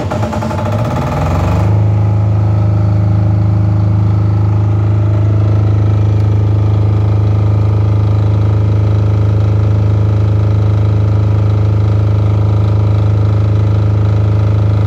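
Silent-canopy generator set with a 186-type single-cylinder air-cooled diesel engine starting on the electric starter: it catches and speeds up over the first second or two, then runs steadily at a constant governed speed.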